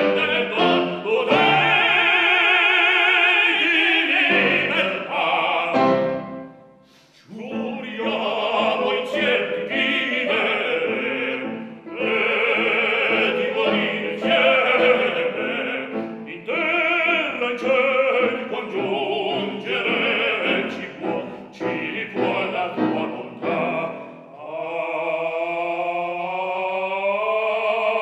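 Operatic singing in Italian, a trained voice with wide vibrato, broken by a brief pause about six seconds in and ending on a long held note.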